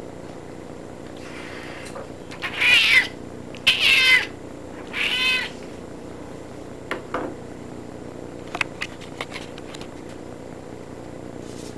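Domestic cat meowing three times in quick succession, each call about half a second long.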